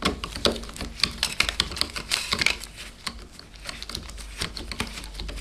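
Small hand screwdriver fastening the screw of the iMac's memory access door: rapid, irregular small clicks and scrapes of the driver tip turning in the screw and of the metal cover seating.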